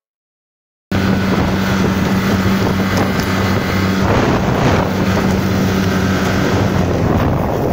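Motorboat engine running at a steady speed, a low hum under the rush of water and wind buffeting the microphone; it cuts in abruptly about a second in.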